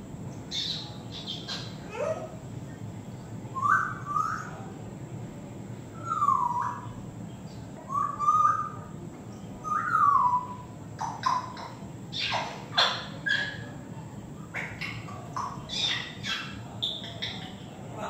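African grey parrot whistling and calling: a run of short whistled glides, some rising and some falling, then quicker high squeaks and clicks in the second half.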